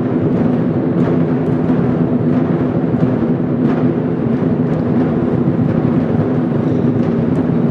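Lion dance drumming: a large drum beaten continuously and loudly, a dense, unbroken pounding.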